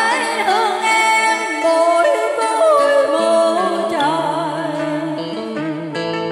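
Karaoke duet of a Vietnamese love song: a voice sings long, wavering, ornamented held notes over instrumental backing, and a low bass line enters near the end.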